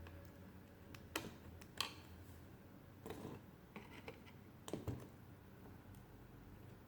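Screwdriver working the chassis screws of a small transistor radio: a handful of light scattered clicks and scrapes, over a faint steady low hum.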